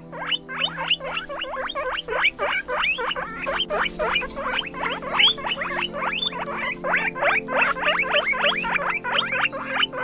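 Guinea pig squeaking in a fast, unbroken run of short high calls, about five a second, each falling in pitch.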